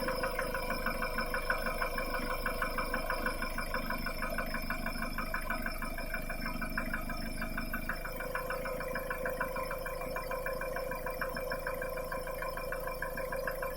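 Mitsubishi 4D56T four-cylinder turbodiesel idling with a fast, even knock. The engine's knock comes from damage after a rag was drawn into the intake and bent an intake valve and a connecting rod.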